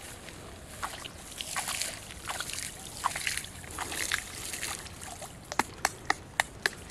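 Pond water splashing and sloshing as hands work in it at the water's edge, in irregular bursts. From about five and a half seconds in, a run of sharp clicks, about three a second.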